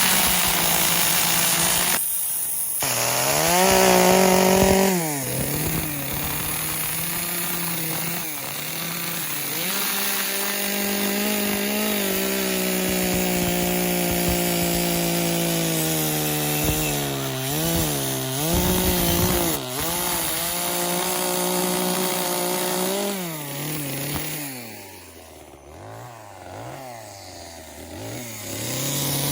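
Chainsaw carving wood, its engine revving up and down as it cuts. Near the end it settles to a quieter, wavering idle for a few seconds, then revs up again.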